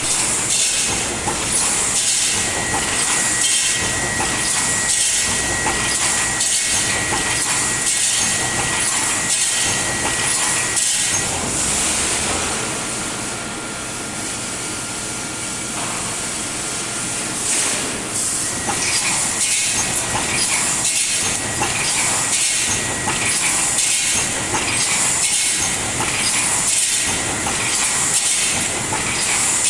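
Roll wire mesh welding machine running, its welding head striking in a steady rhythm about once a second over a constant hiss. The strokes stop for about six seconds in the middle, leaving only the hiss, then start again.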